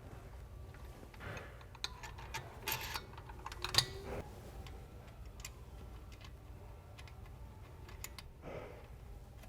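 Scattered light metallic clicks and taps as brake pads and the caliper bridge bolt are handled and fitted into a Wilwood Forged Narrow Superlite four-piston caliper. The clicks are thickest in the first half, with the sharpest one a little under four seconds in.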